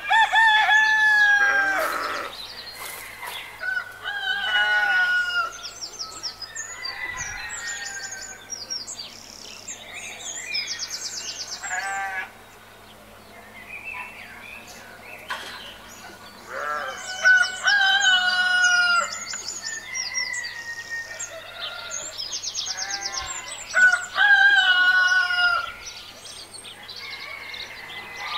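Farmyard sound effects: a rooster crowing several times, with hens clucking and small birds chirping in between.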